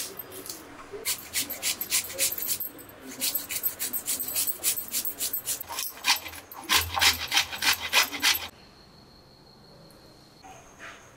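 Handheld metal grater rasping over food in quick repeated strokes, several a second, stopping about three-quarters of the way through.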